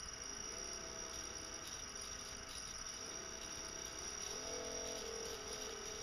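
Small brushed DC motor driven through a Jaguar motor controller under joystick control, running with a lower hum that wavers up and down as its speed changes, under a steady high-pitched whine.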